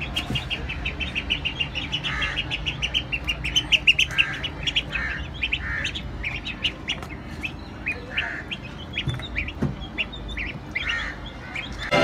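Ducklings peeping: a rapid string of short, high peeps that thins out after the first few seconds.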